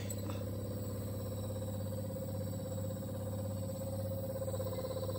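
Compressor nebulizer's electric pump motor running with a steady, even hum. It is being switched on to test it, and the machine is working properly.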